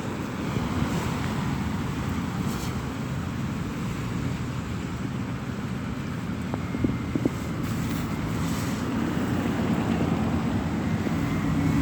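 Highway traffic passing on a rain-wet road: a steady rush of tyres and engines, with wind buffeting the microphone. A couple of small clicks come about seven seconds in.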